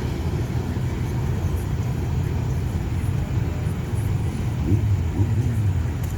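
Empty freight train rolling past, a steady low rumble.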